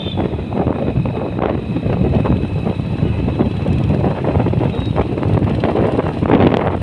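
Wind buffeting the microphone of a moving vehicle, mixed with road and traffic noise. It swells louder near the end.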